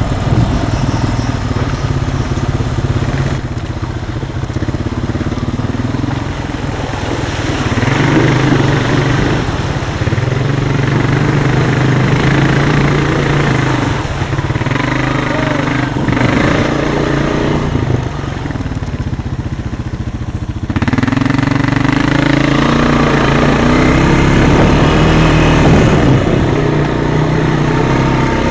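Quad bike (ATV) engine running under way, heard close from on board. Its pitch climbs and drops back several times with the throttle, and it gets louder about two-thirds of the way through.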